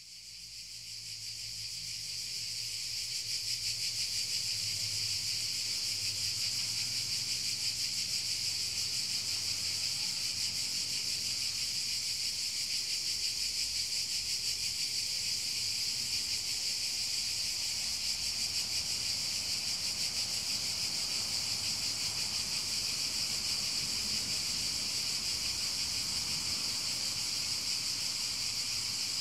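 Steady chorus of trilling insects, high-pitched and continuous, fading in over the first few seconds.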